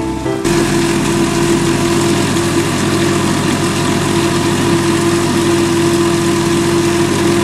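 Countertop blender motor starting about half a second in and running steadily with a loud, even hum, blending a jar full of wild garlic pesto mix that it is not drawing down evenly.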